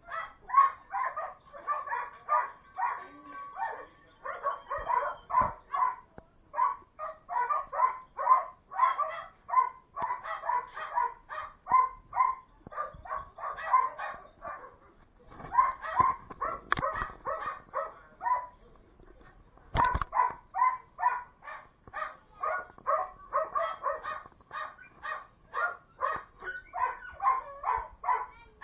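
Dogs barking steadily in a shelter kennel block: short barks, about two or three a second, with a brief lull about two-thirds of the way through. Two sharp knocks cut in just before and after the lull.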